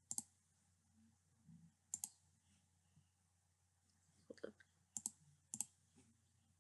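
Computer mouse buttons clicking a few times, about five quick press-and-release double ticks spread apart, with near silence between them.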